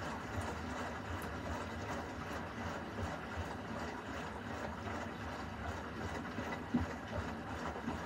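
Beko front-loading washing machine mid-wash: water sloshing and splashing in the turning drum over a low, steady rumble from the machine.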